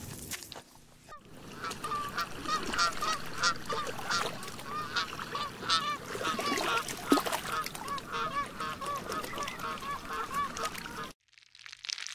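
A flock of birds calling: many short, overlapping calls, repeated rapidly. They begin about a second in and cut off suddenly about a second before the end.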